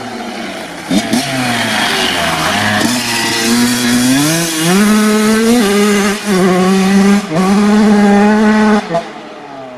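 2007 Honda CR85's 85 cc single-cylinder two-stroke engine revving hard as the dirt bike accelerates past. The pitch climbs and drops back several times with the gear changes, and the sound falls away sharply near the end as the bike rides off.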